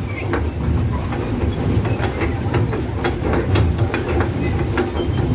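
Swan pedal boat's pedal and paddle drive running as it is pedalled: a steady low rumble with irregular sharp clacks from the mechanism.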